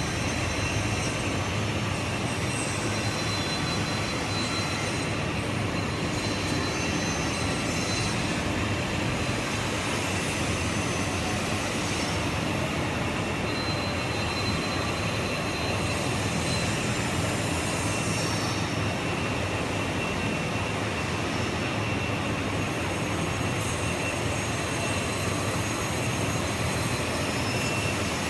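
KTK LGT 340B two-spindle bench drill running: a steady machine whir with a low hum and a faint high whine, unchanging throughout.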